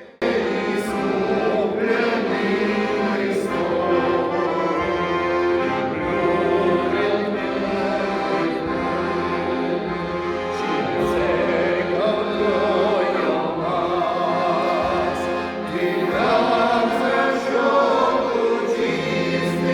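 Many voices singing a hymn together in harmony, like a church choir. It begins suddenly and carries on at an even loudness throughout.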